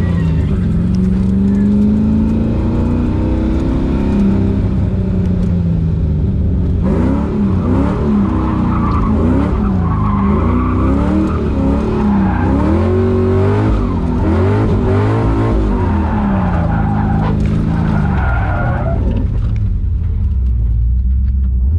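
LS V8 engine of a swapped Mazda Miata NB revving up and down as the car drifts, heard from inside the cabin. Tyres squeal through the middle stretch, from about a third of the way in until near the end.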